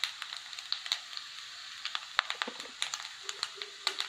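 Food sizzling gently in oil over a low flame: a steady faint hiss with irregular light crackles, from rice dumpling pieces and a tempering cooking in a clay pot.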